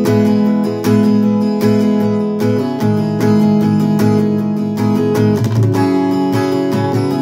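Acoustic guitar with a capo, strummed in a steady rhythm, changing chord every second or two.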